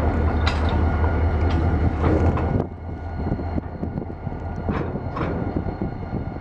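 Railcars moving on the track: a heavy, steady low rumble that drops away suddenly about two and a half seconds in, with a few light clanks over it.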